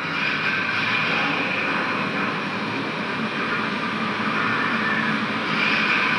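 Steady, loud rush of air from the blowers of a tornado-simulator booth running at full blast.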